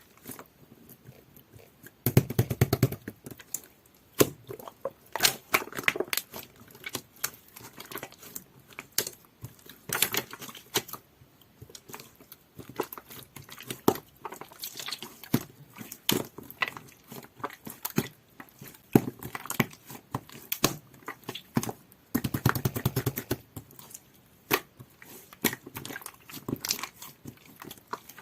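Clear jelly-textured slime being squished and poked by hand, giving a steady run of sticky clicks and pops, with two longer bursts of squelching crackle about two seconds in and again about twenty-two seconds in.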